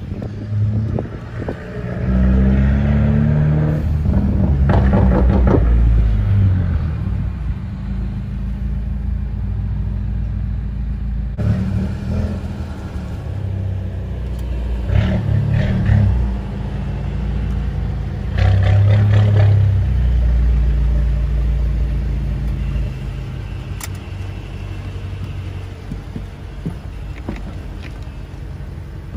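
Car engine rumbling through a parking garage, revving up several times in rising-and-falling swells, then settling to a quieter steady run near the end.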